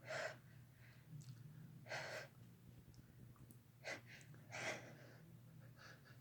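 A person's faint breathing: several short, hissy breaths spaced a second or two apart, the strongest at the very start and about two seconds in.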